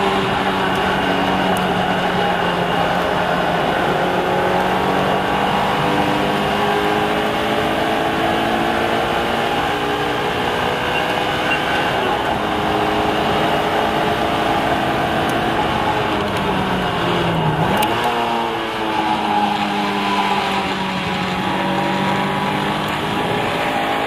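Car engine under hard load during a lap on a race track, heard onboard over road and wind noise. Its pitch holds and climbs, drops sharply about seventeen seconds in as the car slows, then climbs again.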